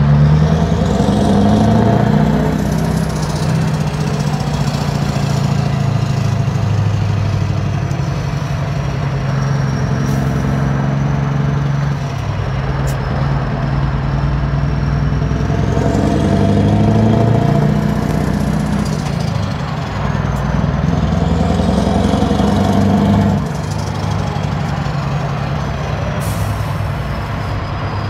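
Scania R500's V8 diesel engine heard from the cab, pulling and easing off in slow traffic. Its note rises three times: at the start, about halfway through and a few seconds later. A high turbo whistle climbs and falls along with it.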